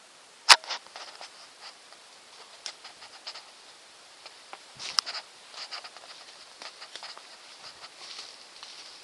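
Irregular clicks, knocks and rustling from someone moving about with a handheld camera. The loudest is a sharp click about half a second in, with another about five seconds in.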